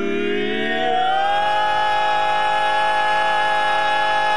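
Barbershop quartet singing a cappella: the male voices slide up together over the first second into a high close-harmony chord and hold it as one long note.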